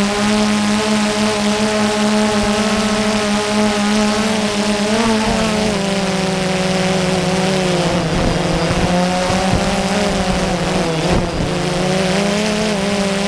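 A drone's electric motors and propellers humming steadily, heard from the camera on board, with a hiss of air over the microphone. The pitch dips about five seconds in and wavers several times later on as the motors speed up and slow down to steer.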